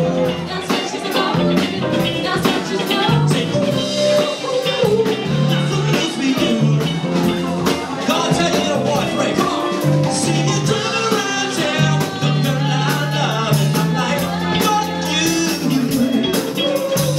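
Live band playing a song with a steady beat: drum kit and percussion, bass and keyboard under singing into microphones.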